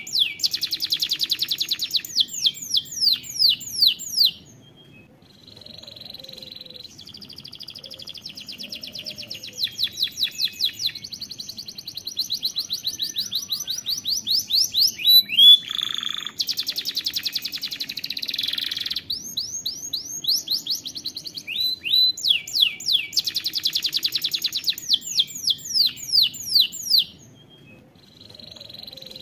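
Domestic canary singing a long song of fast trilled phrases, each a rapid run of repeated notes, with short pauses about four seconds in and near the end.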